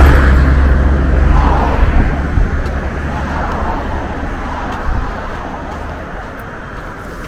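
A box truck passing close by on the road, its engine rumble and tyre noise loudest at the start and then fading away over the next few seconds.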